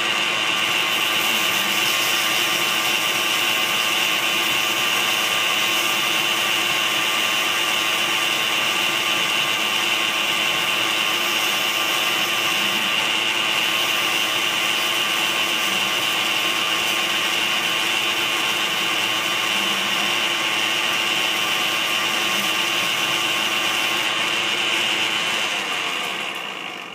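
Metal lathe running at a steady speed, spinning a starter motor armature while a strip of abrasive cloth is held against the copper commutator to clean it. The lathe runs down and stops near the end.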